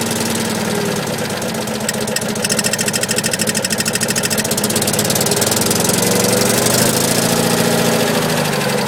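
Citroën Acadiane's air-cooled flat-twin engine idling with a clacking from about two and a half seconds in. The owner thinks it comes from the starter side, perhaps a starter pinion that does not fully retract, and says it goes away when the engine is revved.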